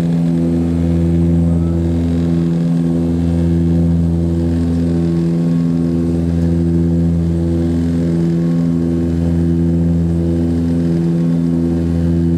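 Cabin drone of the Antonov An-24's twin Ivchenko AI-24 turboprop engines and propellers, heard from inside the fuselage. A steady hum of several tones with a slow throb about every three seconds, the beat of the two propellers turning slightly out of sync.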